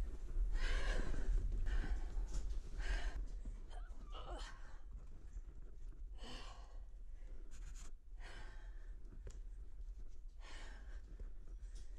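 A climber breathing hard from the effort of pulling up a rope, with heavy exhalations about every one to two seconds, loudest in the first few seconds, over low handling rumble on the microphone.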